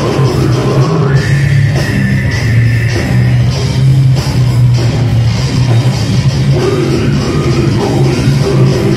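Live slam and brutal death metal band playing loud and continuously: distorted guitars, bass and drums with vocals.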